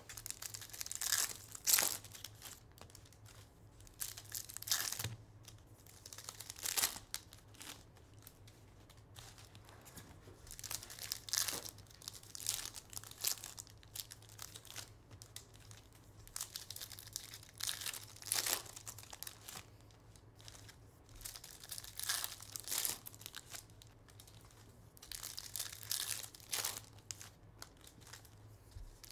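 Baseball card pack wrappers being torn open and crinkled as the cards are pulled out, in short rips every few seconds.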